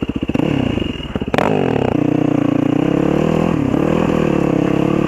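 Single-cylinder four-stroke dirt bike engine on a Yamaha WR450F, revving up and down over the first two seconds with a sharp knock about a second and a half in, then running steadily under throttle.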